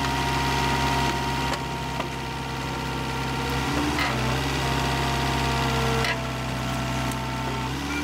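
Engine of a tractor-mounted hydraulic tree spade running steadily as its blades dig out a plant for transplanting, with a faint steady higher tone over the hum.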